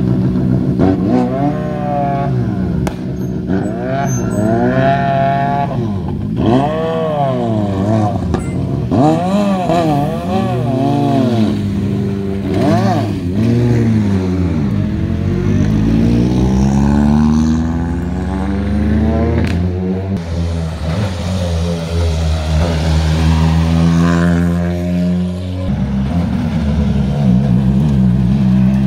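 Several rally cars' turbocharged four-cylinder engines running at low speed. A steady idle is overlaid with repeated short rev surges, each rising and falling in pitch, and slower rises and falls later as cars pull away and others arrive.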